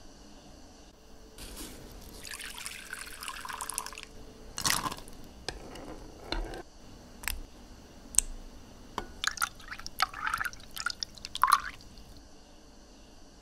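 Drink-making liquid sounds: a pour lasting a couple of seconds, then a run of short splashes, drips and sharp clinks, while brown sugar syrup with tapioca pearls is stirred with a ladle.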